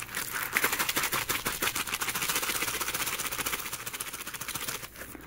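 A plastic MRE hot beverage bag holding water and instant coffee mix, shaken hard by hand to dissolve the coffee, sweetener and creamer. It makes a rapid, continuous crinkling rattle that dies away near the end.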